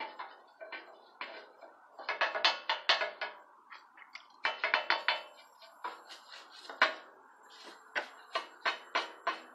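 A hand tool scraping and knocking on the cast-iron legs of an old sewing-machine treadle stand: bursts of quick metallic clicks and scrapes with a slight ring, in three or four groups with short pauses between.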